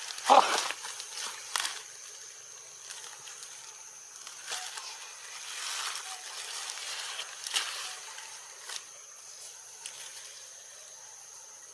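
Tropical forest ambience: insects keep up a steady high-pitched whine, over scattered rustling and a few sharp clicks. The loudest is a short sound just under half a second in.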